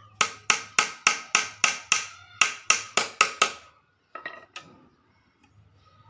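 A small hammer tapping about a dozen times at a steady pace of roughly three strikes a second on the wooden frame of a bird cage being assembled, setting the bars into the rim, followed by a few lighter ticks.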